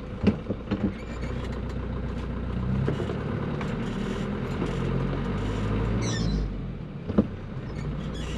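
1985 Mazda T3500 truck's engine pulling away, heard from inside the cab. A few clunks of the controls come in the first second, then the engine note builds. Just before seven seconds in the engine note dips, a sharp clunk sounds as it shifts gear, and then it pulls again.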